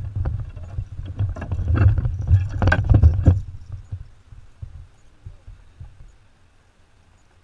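Knocks, clicks and low thumps of a man moving about in a fishing kayak and handling his fishing rod, carried through the hull to the mounted camera. They come thick for the first three seconds or so and die away by about four seconds in.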